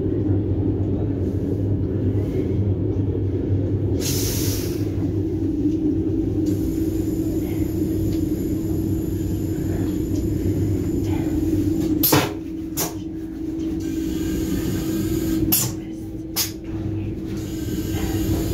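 Steady rumble and hum inside a passenger train, with a short hiss about four seconds in and a few sharp clicks and knocks in the second half.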